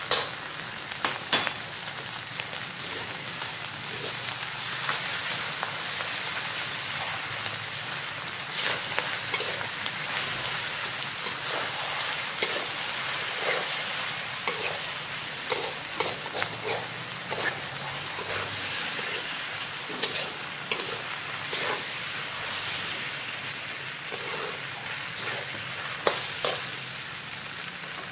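Macaroni with egg and onion sizzling steadily in a hot wok, while a metal spatula stirs and tosses it, scraping and clicking against the pan many times.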